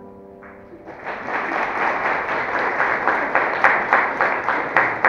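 Audience applause that starts about half a second in and builds, turning into clapping in unison at about three to four claps a second. Before it begins, the last chord of a traditional Chinese instrument ensemble rings away.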